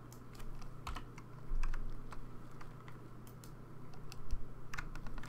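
Computer keyboard typing: irregular, scattered key clicks with short pauses between them, over a steady low hum.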